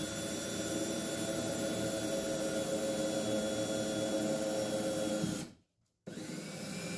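Cordless drill running steadily as its bit bores a pilot hole through a cured epoxy plug in a foam-core bulkhead. It stops about five and a half seconds in, then starts again near the end with a whine that rises and falls in pitch.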